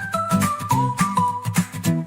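Upbeat background music: a stepping melody line of short held notes over a bouncy bass with a steady beat.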